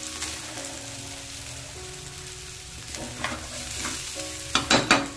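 Steel spatula stirring and scraping raw Gobindobhog rice as it fries in oil in a wok, with a steady light sizzle; a few louder scrapes come near the end. The rice is being toasted until the grains turn loose and separate, the step that makes a pulao fluffy.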